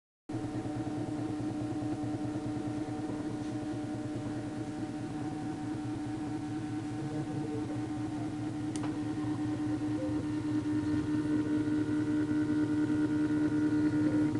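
Stepper motor driving a peristaltic pump as it pushes peanut butter, running with a steady whine that grows slowly louder. One sharp click a little past halfway.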